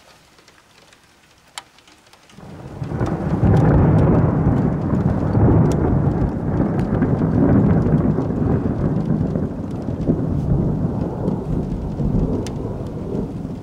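Thunder from a nearby lightning strike. After a couple of quiet seconds it sets in about two seconds in, swells to a loud rumble within a couple of seconds, then rolls on and slowly fades. Scattered raindrop ticks run throughout.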